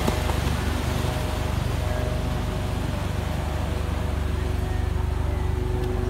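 Ocean surf breaking and churning, heard as a steady low rumble with a hiss of foam above it.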